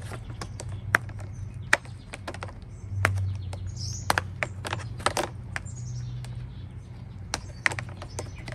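A foam Grip Puppy sleeve being worked by hand over a soaped motorcycle throttle grip: irregular sharp clicks and squeaky rubbing. A steady low hum runs underneath.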